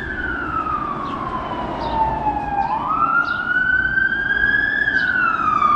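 An emergency vehicle's siren wailing in slow sweeps: its pitch falls for a couple of seconds, climbs again, and falls once more.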